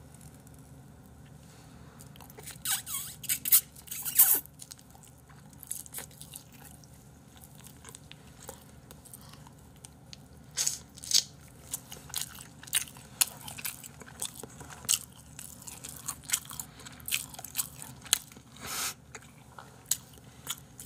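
Close-up mouth sounds of a person eating a stick of fish sausage: biting and chewing with scattered wet smacks and clicks, and a cluster of louder crackles a few seconds in.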